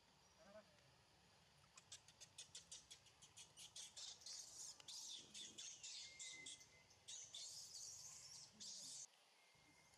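Faint high-pitched chirping: a run of quick clicks that speeds up, then longer rasping chirps, cutting off suddenly near the end.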